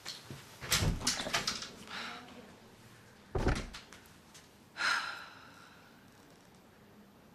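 A door being handled and shut: a run of clicks and knocks about a second in, then one heavy low thud of the door closing at about three and a half seconds, with a shorter sound at about five seconds.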